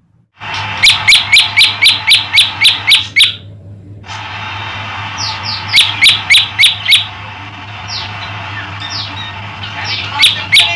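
Male prenjak lumut singing one of its call variations: a rapid string of about ten sharp, high, downward-sweeping chirps, a short pause, a second run of about six, then two more chirps near the end.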